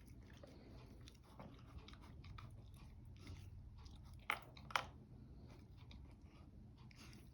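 Dog chewing and crunching food, with a run of small crunches and two sharper, louder cracks about four and a half seconds in.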